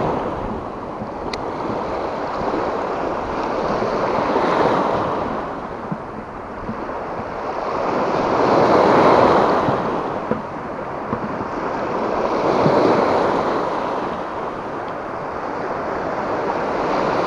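Sea waves washing over a rocky shoreline, the surge rising and falling roughly every four seconds.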